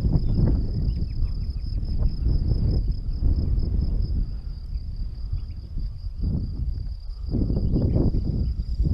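Wind buffeting the microphone in gusts that swell and fade, over a steady high chirring of insects.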